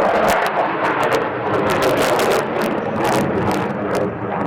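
Jet fighter engine noise at an air show, loud and steady with a rough crackle running through it.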